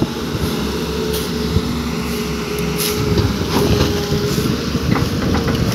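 Tata Hitachi EX210 tracked excavator's diesel engine running under load as it swings its boom and works its hydraulics, a continuous low rumble with a steady tone over it.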